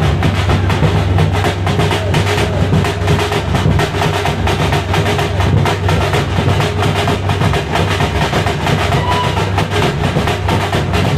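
Live drum music: a group of drums beaten in a fast, dense, steady rhythm without letting up.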